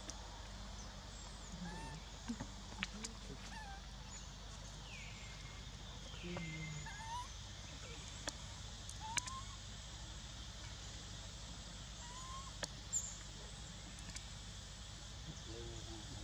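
Scattered short, rising animal calls over a steady low background hum, with a few sharp clicks and a falling call about five seconds in.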